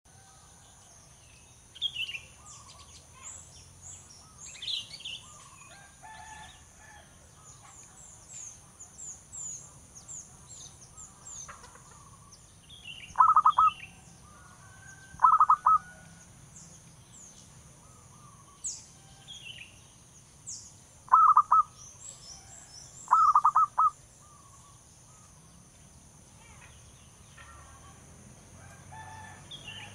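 Zebra dove calling in four loud bursts of rapid staccato cooing, each about a second long. Two come about halfway through and two more some six to eight seconds later, over scattered higher chirps of small birds.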